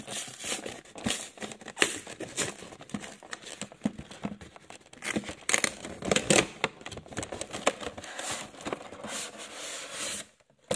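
Packaging of a Pokémon trading-card collection box being torn open and crinkled: a continuous irregular run of tearing and rustling, loudest about halfway through, that stops a little before the end.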